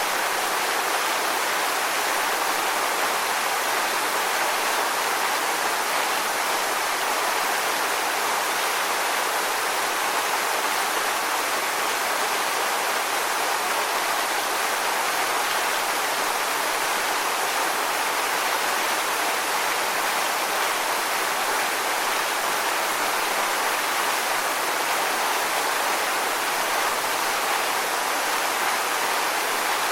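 Waterfall: water falling and splashing in a steady, even rush with little deep rumble.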